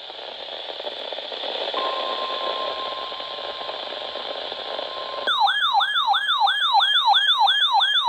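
Radio hiss. About two seconds in, the steady 1050 Hz NOAA Weather Radio warning alarm tone starts. About five seconds in, a loud electronic siren alarm cuts in over it, a rising sweep repeating about three and a half times a second.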